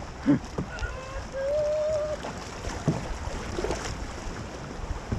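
Kayak on the river: water and paddling noise with a few sharp knocks. A single held pitched note sounds for about a second, starting roughly a second in.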